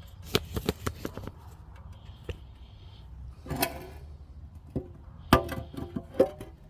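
Metal tools and parts being handled: a run of scattered clinks and knocks, a few of them ringing briefly, the loudest about five seconds in.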